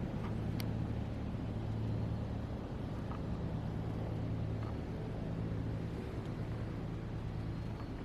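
Steady low mechanical hum, with a faint click about half a second in.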